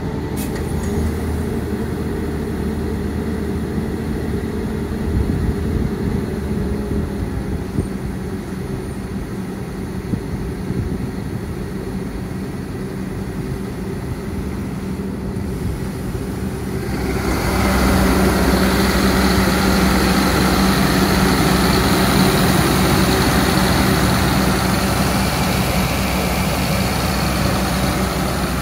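Cummins diesel engine of a Doosan / Ingersoll Rand 12/150 mobile air compressor running steadily just after starting. A little past halfway it steps up to a louder, busier running with much more rushing noise, as the machine comes up from its start-up speed.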